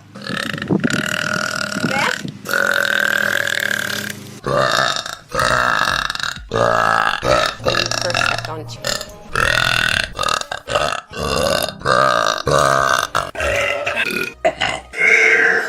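A woman burping over and over: two long belches in the first four seconds, then a rapid string of shorter burps.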